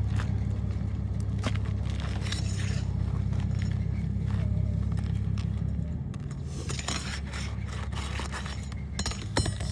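Metal tool scraping and clinking against asphalt shingles and roofing nails as the nails are worked loose from a shingle tab, in scattered short clicks and scrapes with a sharper click near the end. A steady low hum runs underneath throughout.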